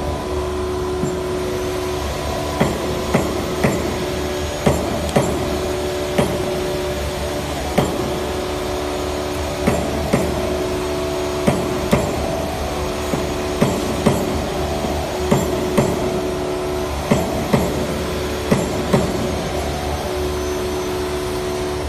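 Irregular metal clicks and knocks as the steel parts of a handle hole punch die are fitted together and worked with a hex key, over a steady hum.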